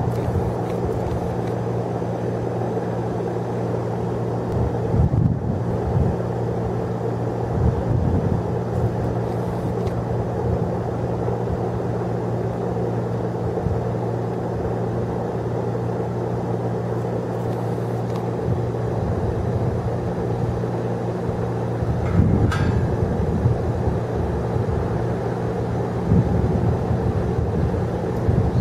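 A steady low mechanical hum, with a few brief swells of louder noise.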